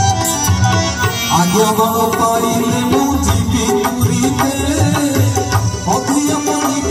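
Devotional song with harmonium and a steady hand-drum rhythm. A man's voice comes in about a second in, singing into a microphone.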